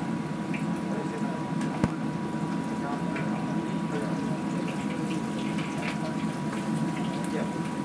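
Beef deep-frying in hot oil in a wok, bubbling and crackling over a steady low rushing background. There is one sharp click about two seconds in, and a faint steady tone underneath.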